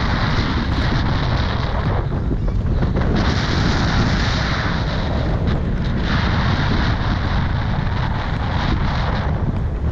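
Wind buffeting the microphone of a mountain biker's camera while riding a trail: a loud, steady rumble with hiss that thins out briefly a few times.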